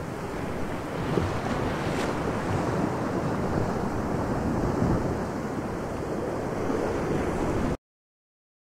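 Dubbed-in sound effect of sea wind and waves: a steady rushing noise that cuts off suddenly near the end.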